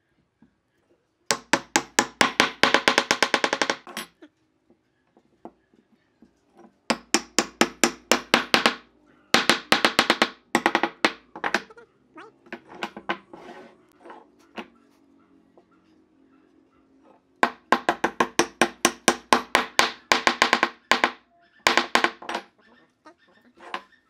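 Bursts of rapid hammer taps, roughly eight to ten a second, knocking hardwood blocks down onto glued dowels to seat the joints. Each knock rings with a hollow, pitched wood tone. Three or four bursts come with pauses between them.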